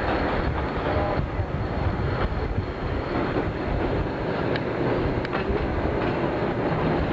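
Narrow-gauge train running slowly, heard from aboard: a steady rumble of the moving carriages with a few sharp clicks of the wheels over the rail joints.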